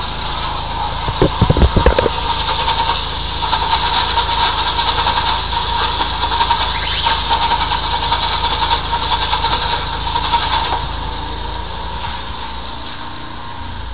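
High-pressure drain jetter at work: a loud, steady hiss of water jetting from the nozzle inside a drain pipe, over a steady machine hum, with a few knocks about a second and a half in. The hiss eases off in the last few seconds.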